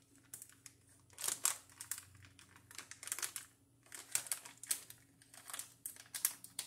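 Plastic snack bag crinkling and crackling in several short bursts as it is handled and pressed under a handheld bag sealer.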